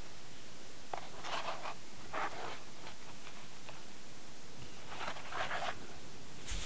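A few short, soft rustling or scraping sounds in clusters, about a second in and again about five seconds in, over a steady hiss.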